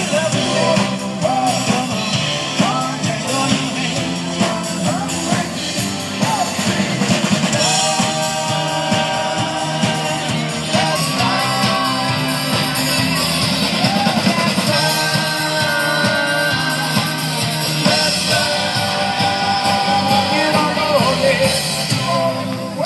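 Music with a singer, drums and guitar, playing continuously with a steady beat.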